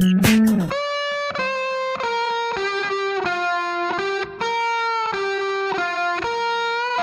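Background music: a distorted electric guitar plays a slow single-note melody of held notes, opening with a slide down in pitch, with no drum beat under it.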